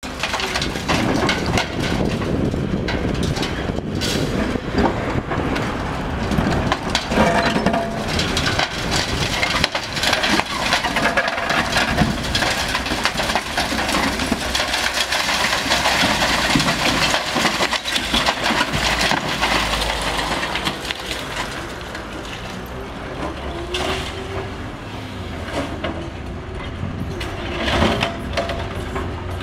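Cat hydraulic excavator with demolition crusher jaws tearing and crushing a reinforced-concrete building: continuous crunching and cracking of concrete, with rubble breaking and falling. In the last several seconds the crushing eases and the excavator's engine and hydraulics are heard more plainly, with a wavering whine.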